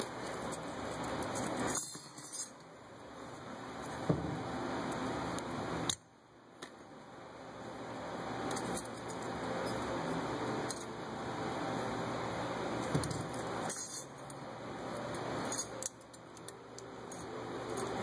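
Light metallic clicks and clinks as stainless brake pad slide clips are handled and snapped into a caliper bracket, scattered every couple of seconds over a steady background hiss.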